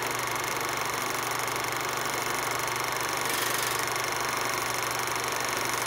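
Film projector running sound effect over a countdown leader: a steady mechanical whir and clatter with a fast, even flutter.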